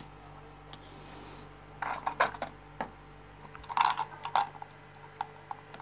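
Small parts being handled: sharp clicks, taps and rattles of a 9 V battery and its wire leads on a corrugated plastic board and of small metal bulb holders in a clear plastic container, in two short clusters, the second the louder.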